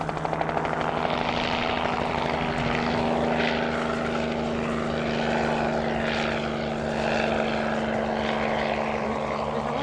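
Helicopter flying close by: a steady engine hum with the fast, even beat of its rotor underneath.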